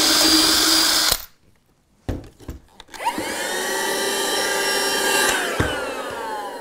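A cordless drill runs as it bores a hole through the layout's baseboard, then stops about a second in. After a few knocks, a small handheld vacuum starts with a rising whine about three seconds in, runs steadily while sucking up the drilling debris, and winds down with a falling whine after it is switched off.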